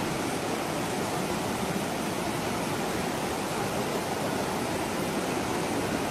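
Steady rushing of a huaico, a fast muddy flood surging through a river channel.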